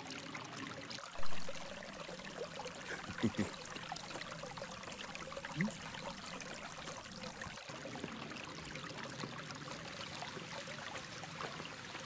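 Steady rush of a mountain stream, with a single thump about a second in.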